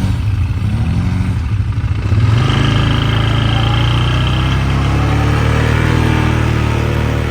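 Vehicle engine running, with small rises and falls in revs at first, then louder and steady under load from about two seconds in.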